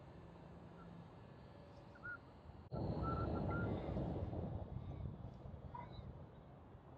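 Sudden rough buffeting on the microphone, a little under three seconds in, lasting about two seconds before fading, with a few faint bird chirps around it.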